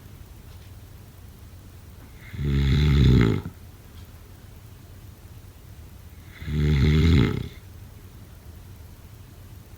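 A person snoring: two snores about four seconds apart, each lasting about a second, with quiet breathing gaps between.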